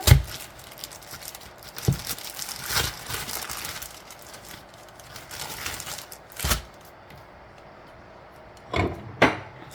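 Plastic bag of flour tortillas crinkling as it is opened and a tortilla is pulled out, with several sharp knocks in between.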